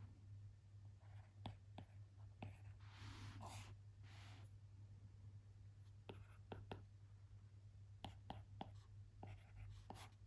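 Sparse light clicks and taps from desk work on a computer and tablet, coming singly early on and in quick runs later. About three seconds in there is a short scratchy stroke. Under it all is a low steady hum.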